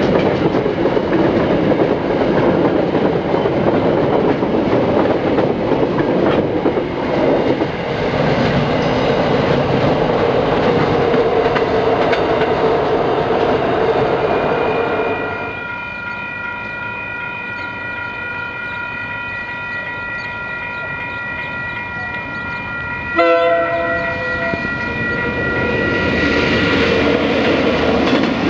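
Container wagons of a long freight train rumbling and clicking over the rail joints as they pass. About halfway through, a steady ringing of level crossing bells takes over. Near the end, KiwiRail DL-class diesel locomotives approach and pass, and their sound swells.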